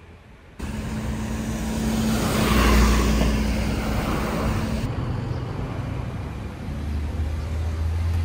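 A car passing close by on the road. Its noise swells to a peak about three seconds in and then eases off, followed by steadier road traffic noise with a low hum.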